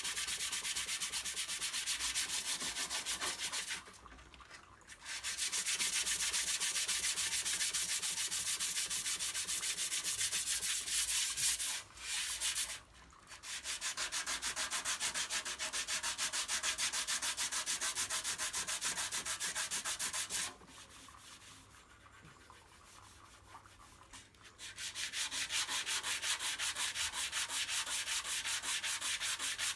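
Dry sandpaper rasping over cured body filler in fast, even strokes, a steady hiss while the filler is shaped. It stops briefly twice and for about four seconds a little past the middle.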